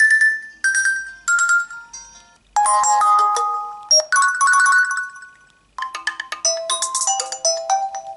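Nokia 2720 Flip phone playing previews of its built-in ringtones through its speaker, one after another. Short chiming electronic melodies, each cut off as the next ringtone in the list is highlighted, with a new one starting every second or two.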